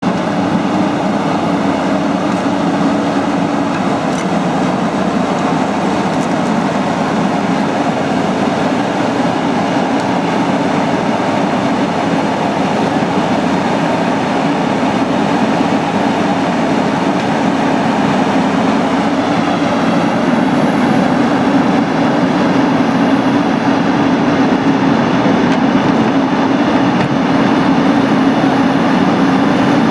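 Cat 320C tracked excavator's diesel engine running steadily under load while the machine digs, getting a little louder in the last ten seconds.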